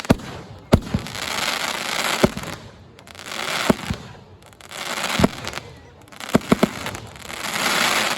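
Fireworks display: sharp bangs of exploding shells, with a quick run of three about six and a half seconds in, and a wash of crackle that swells and fades between them.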